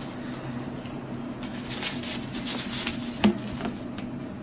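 A cardboard aperture mask being handled and fitted over the open end of a telescope tube: a run of short rustles and scrapes, then one sharp knock about three seconds in as it goes onto the rim. A steady low hum sits underneath.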